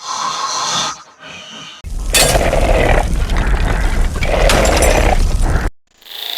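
Snoring sound effects played in quick succession: a short pitched snore in the first second, then a loud, rough snore with two heavy breaths about two seconds apart that cuts off near the end.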